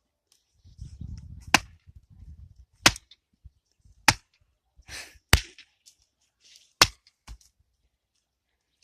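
An axe chopping firewood: five sharp strikes roughly a second and a quarter apart, then a fainter knock just after the last.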